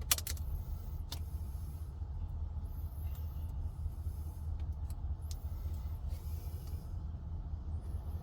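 Steady low rumble of a vehicle running, with a sharp click near the start and a second, softer click about a second in.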